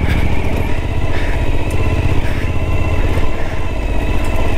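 Suzuki V-Strom 1050XT's V-twin engine running steadily under way at low speed.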